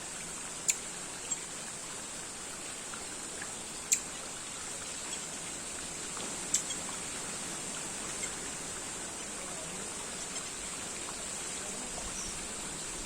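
Steady outdoor background hiss with a thin high band, broken by a few sharp clicks about a second in, around four seconds and near six and a half seconds.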